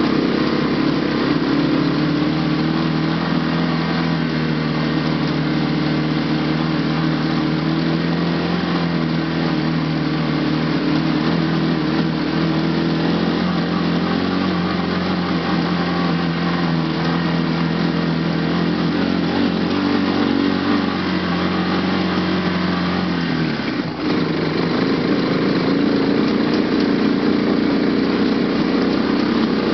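ATV engine running steadily under load as the quad climbs a rough, rocky trail. About three-quarters of the way through, the loudness dips briefly and the engine note changes abruptly.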